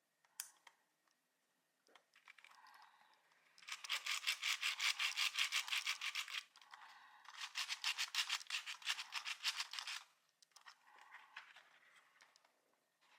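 Quick back-and-forth rubbing or scraping strokes, about seven a second, in two bursts of about three seconds each with a short break between them, plus a few fainter scrapes before and after.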